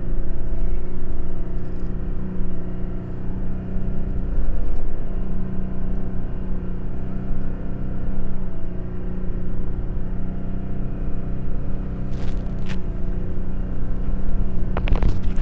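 Toyota Tacoma's engine held at high revs in first gear, straining as the truck ploughs through soft beach sand, heard from inside the cab. The pitch stays steady, with a heavy low rumble, and a couple of brief noisy bursts come near the end.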